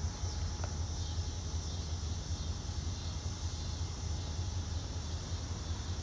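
Steady low rumble of a CSX SD40-3 diesel locomotive's engine running, with an even high hiss over it.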